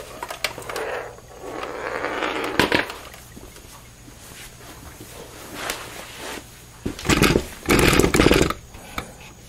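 Handling noise: rustling and scattered clicks, then two loud, deep bumps about seven to eight and a half seconds in.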